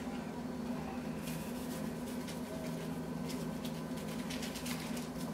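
Seasoning being shaken from a plastic spice shaker over meat in a plastic-lined crock pot: faint, irregular ticks and rustles from about a second in, over a steady low hum.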